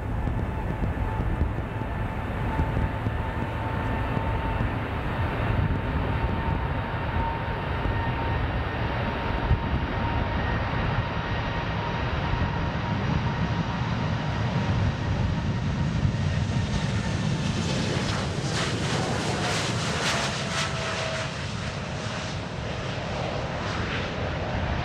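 Jet airliner engines running with a loud, steady rumble and a high whine; about 18 seconds in, the whine slides down in pitch as the aircraft passes.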